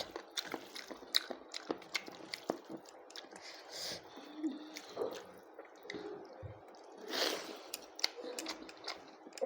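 A person chewing close to the microphone, with wet mouth clicks and smacks, eating goat lung curry with rice. One louder breathy burst comes about seven seconds in.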